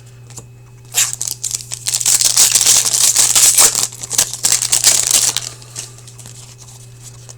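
Foil wrapper of an Upper Deck hockey card pack being torn open and crinkled: a dense crackling that starts about a second in and dies away after about five seconds.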